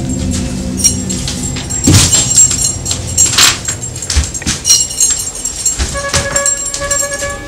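Dramatic film soundtrack: irregular sharp, jangling metallic hits over sustained tones, which settle into a held chord about six seconds in.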